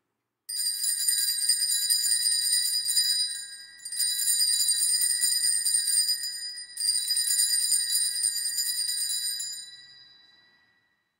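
Altar bells (sanctus bells) shaken in three peals of rapid jingling ringing, the last one ringing out and fading away. This is the ringing at the elevation of the chalice during the consecration.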